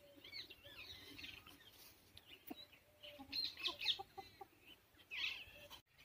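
Young desi chickens clucking and calling faintly while foraging, in short scattered calls that bunch together a little past the middle and again near the end.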